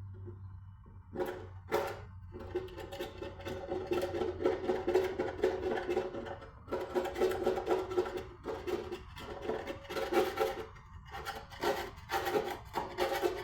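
Power tool cutting or grinding into rusted car bodywork, running in bursts with short stops between them.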